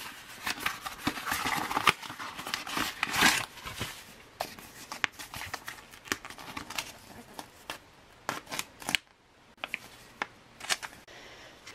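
Foil ration pouches torn open and crinkled by hand: dense crackling for the first few seconds, then scattered crinkles and clicks.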